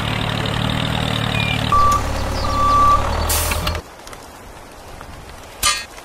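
A vehicle engine running steadily, with two short high beeps about two seconds in and a short hiss just after three seconds. The engine sound cuts off at about four seconds, leaving a quieter stretch with a brief sharp sound near the end.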